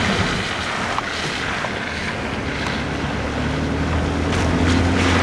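Steady rushing wind noise on the microphone, with a vehicle engine's low steady hum coming up about three and a half seconds in.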